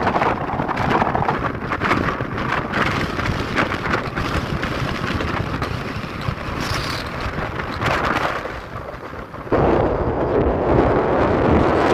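Strong mountain wind gusting and buffeting the microphone in a rough, rumbling rush, easing off briefly and then jumping suddenly louder about three-quarters of the way through.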